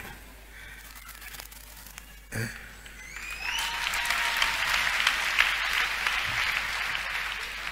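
Congregation applauding, starting about three seconds in with a short rising whoop, swelling and then tapering off near the end.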